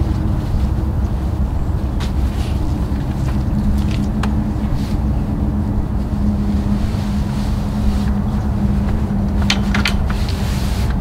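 Steady low engine rumble with a constant hum, like an idling vehicle. A few sharp clicks and rustles of the awning fabric and frame being handled sound about two and four seconds in, and again near the end.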